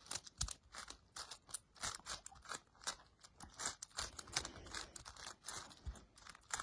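A plastic 6x6 Rubik's cube being turned by hand, its outer layers clicking and clacking in quick, irregular turns several times a second.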